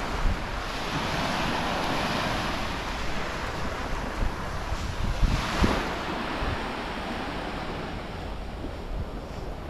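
Sea waves breaking and washing up the beach, with one louder surge about halfway through, and wind rumbling on the microphone.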